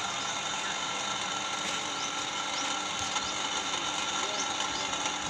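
Motorized material hoist (winch) running with a steady mechanical whirr of motor and gearing.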